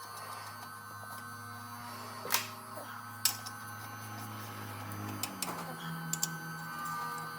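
A steady low hum that steps up to a slightly higher pitch about five seconds in, with a few sharp clicks scattered through it.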